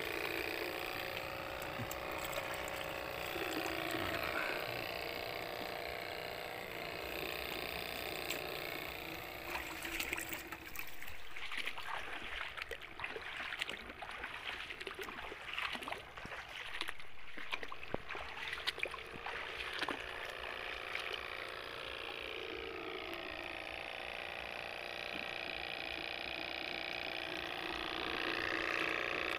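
Footsteps splashing and sloshing through shallow water and wet mud, busiest in the middle of the stretch. Underneath runs a steady drone of several high held tones.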